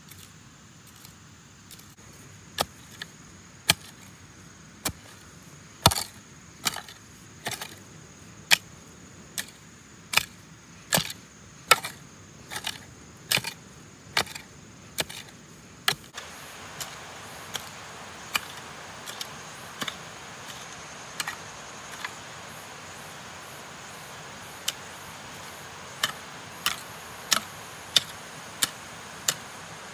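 A series of sharp knocks or clicks, roughly one a second and uneven in strength, like repeated handwork strikes. About halfway through the background hiss steps up abruptly.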